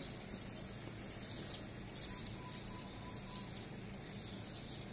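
Swallows giving repeated short, high chirps, alarm calls as they mob a cat, over a steady low background hum.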